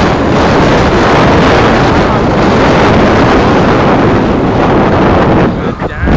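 Loud, steady wind rush buffeting the microphone, mixed with the engine and road noise of a moving vehicle; it dips briefly near the end.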